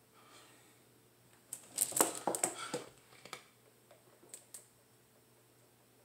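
Large plastic water bottle crackling and clicking as it is picked up and handled, a dense burst of crinkles starting about a second and a half in, then a couple of single clicks while drinking from it.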